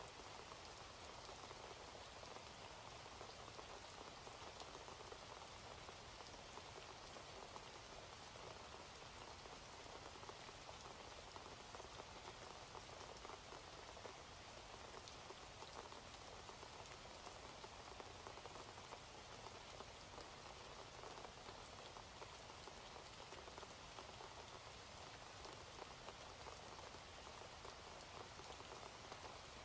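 Faint, steady rain: an unbroken stream of small drop ticks with no pauses or changes.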